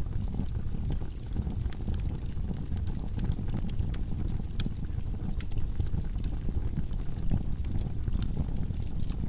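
Wood fire of burning logs in a fireplace: a steady low rumble of the flames with frequent sharp crackles and pops at irregular intervals.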